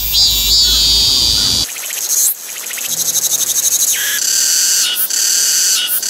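Songs of several cicada species, one after another with abrupt switches every second or two, among them Hyalessa fuscata (참매미) and Meimuna mongolica (쓰름매미). One song in the middle pulses rapidly, several times a second.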